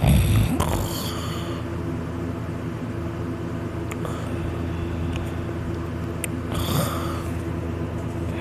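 A person snoring heavily in sleep: a loud snore in the first second and another about seven seconds in, over a steady low hum.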